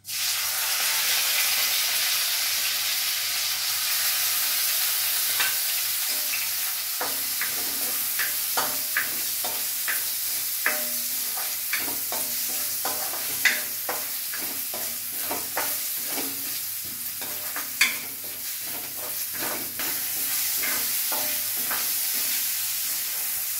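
Washed rice sizzling in hot ghee in a metal kadhai, the hiss starting suddenly as the rice goes in: the rice is being roasted in ghee. A plastic spatula stirring the rice against the pan adds frequent sharp clicks and scrapes from a few seconds in.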